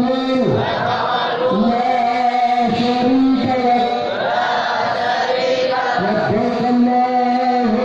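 A large group of young voices chanting together in unison, in long held notes, phrase after phrase, with brief breaks between phrases.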